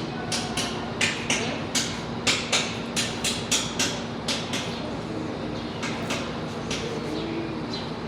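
Repeated hammer blows on metal, irregular at about two to three a second, thinning out after about six seconds, over a steady hum.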